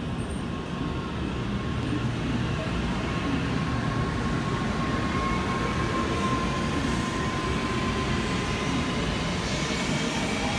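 N700 series Shinkansen train pulling away from a station platform and gathering speed: steady rolling noise with a faint electric whine that rises in pitch toward the end as it accelerates.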